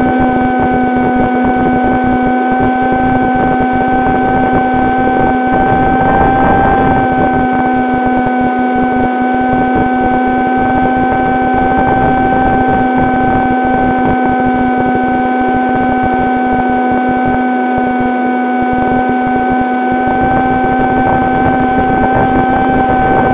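Electric motor and propeller of an AR900 FPV flying wing, heard from its onboard camera: a steady hum held at an even throttle, with wind buffeting the microphone.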